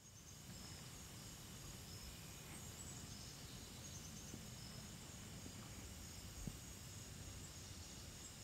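Faint evening nature ambience: crickets chirping steadily and high over a low rumble.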